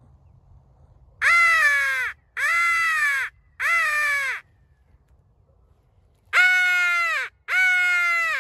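Crow call sounding five loud, close caws to imitate crows: three in a row, a pause of about two seconds, then two more, each caw a little under a second long and dropping in pitch at its end.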